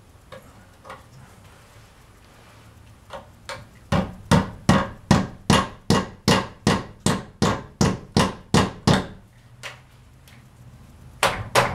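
Hammer driving the last peg into its hole in a wooden stair railing: a few light taps, then a steady run of about fourteen hard blows at roughly three a second, and two more hard blows near the end.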